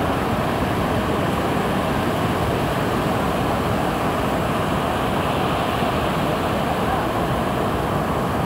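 Rough, storm-driven surf breaking and washing up a sandy beach: a steady, even roar.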